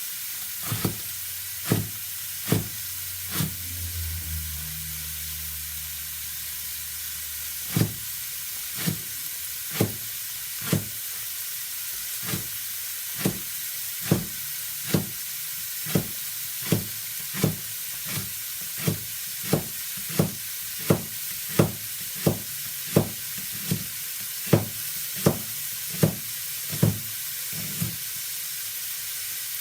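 Kitchen knife chopping leeks on a chopping board: sharp knocks, unevenly spaced at first, then a steady rhythm of about one and a half a second, over a steady hiss. A low hum sounds for a few seconds near the start.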